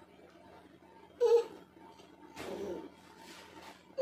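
Brief bursts of laughter in a quiet room: one short, loud laugh about a second in and a softer, breathier laugh about a second later.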